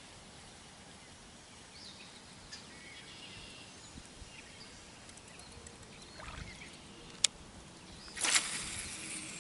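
Quiet lakeside background with faint bird chirps. A sharp click about seven seconds in, then a brief swish as a baitcasting rod is cast, with the reel spool humming faintly as line pays out near the end.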